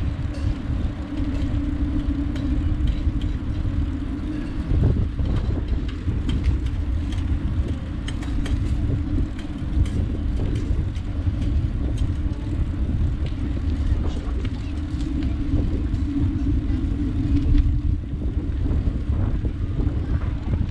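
Riding a bicycle along a paved park path: a steady low rumble of wind on the camera microphone and tyres rolling on asphalt, with a hum and scattered small clicks and rattles.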